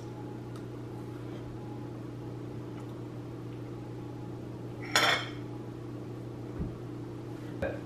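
A metal fork tapping and scraping on a ceramic plate while French toast is cut and eaten, with one louder scrape about five seconds in. A steady low hum runs underneath.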